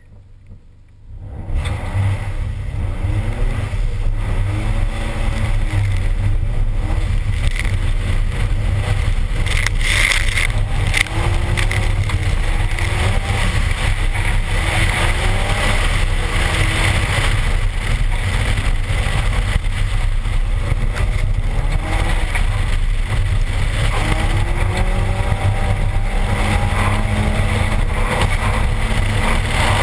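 Turbocharged Toyota 3S-GTE four-cylinder in a RAV4 accelerating hard after a quiet start about a second in, its pitch rising and falling again and again through the run. Heavy wind rumble and the hiss of tyres throwing slush and water are mixed in.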